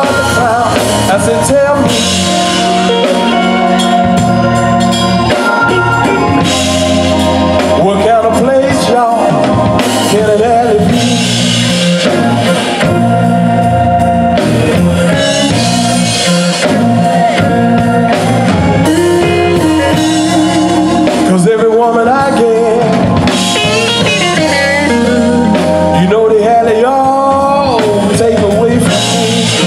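Live blues band playing: electric guitar leading over electric bass and a drum kit, the guitar lines bending in pitch.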